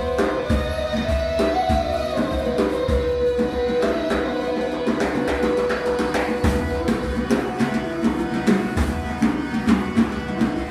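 Egyptian zar music: hand drums beating a steady rhythm under a flute holding long notes that step between pitches. About halfway through, the flute fades back and the drumming comes forward.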